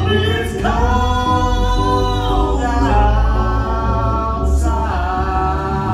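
A woman and a man singing a duet through a live sound system over a band, holding long notes; one note slides down partway through, and a new held note starts near the end.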